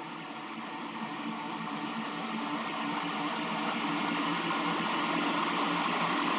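A steady hissing drone with a few faint humming tones in it, slowly growing louder.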